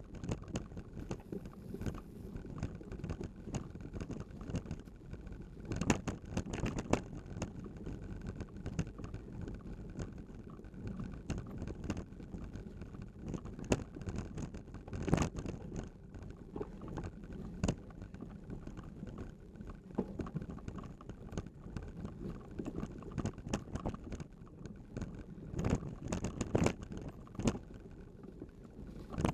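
Bicycle rolling fast over a rough dirt rail bed: a steady rumble of tyres and wind on the microphone, with frequent rattles and knocks as it jolts over bumps, several of them sharper.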